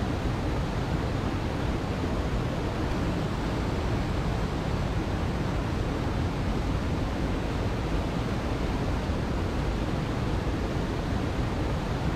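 Steady, unbroken rush of flowing water, with most of its weight in the low and middle range.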